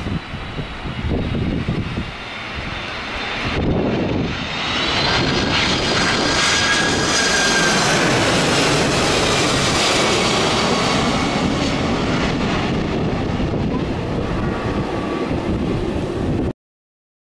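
Boeing 767's twin turbofan engines on landing approach, passing low overhead. A low rumble swells from about four seconds in into a loud roar with a high whine, peaks as the jet goes over, then holds as a steady rumble until it cuts off abruptly near the end.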